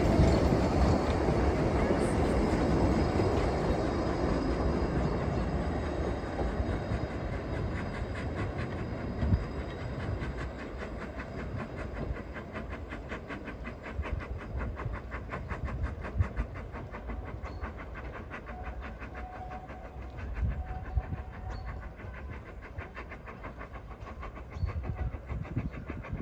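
Isle of Man Railway Beyer Peacock 2-4-0T steam locomotive pulling away with its train of carriages. Its rhythmic clatter fades steadily as the train draws off into the distance.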